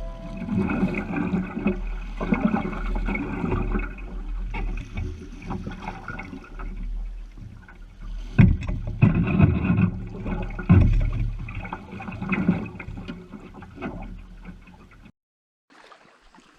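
Canoe paddle strokes in lake water, splashing and gurgling in a rough rhythm over a steady low rumble. The sound stops abruptly shortly before the end.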